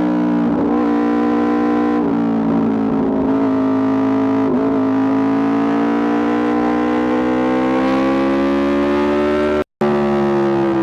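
Aprilia RSV4 RR's V4 engine held at high revs through an Austin Racing exhaust: a loud, steady pitched note that dips briefly a few times, then climbs slowly in pitch. The sound cuts out for an instant near the end.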